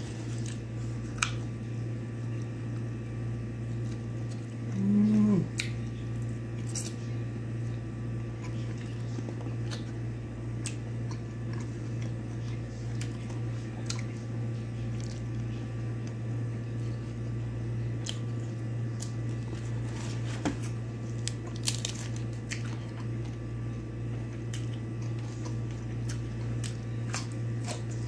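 A person chewing food close to the microphone, with many short scattered mouth clicks over a steady low hum. A brief hummed vocal sound comes about five seconds in.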